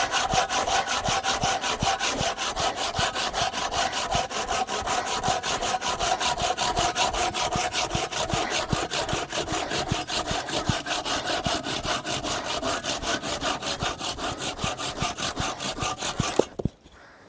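Large hand saw cutting through wood for firewood, in quick, regular back-and-forth strokes of about four a second. The sawing stops abruptly near the end.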